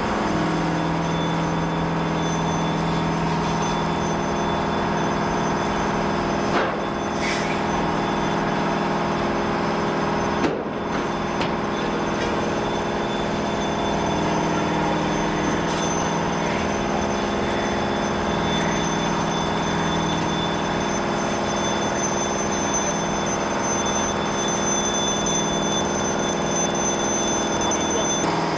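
A large vehicle engine running steadily at a constant pitch, with two brief sharp knocks about six and a half seconds in and again about four seconds later.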